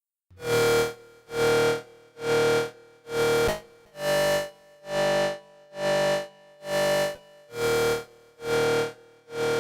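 Elektron Analog Four/Keys analog synthesizer playing an EDM preset: a bright pitched synth note repeated evenly a little more than once a second. It shifts to a different pitch about four seconds in and returns to the first near the end.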